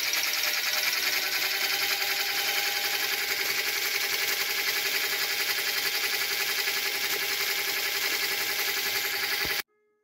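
Washing-machine motor rewired as a 12-pole three-phase motor, running steadily off its speed controller: a steady whine and hum with a high hiss. It cuts off abruptly near the end.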